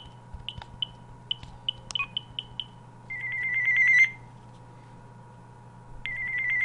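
Gigaset A170A cordless phone handset: a string of short high beeps, then a ringtone of one high tone trilled rapidly, about ten pulses a second, growing louder over about a second. It stops, and after about two seconds the same trill starts again near the end.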